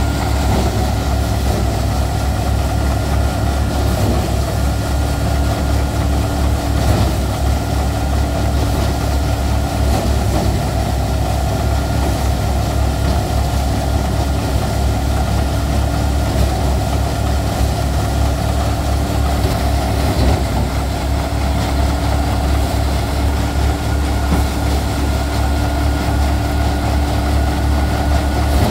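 Tractor engine running at a steady speed while powering a five-fan paddy thresher, giving a loud, steady, deep drone.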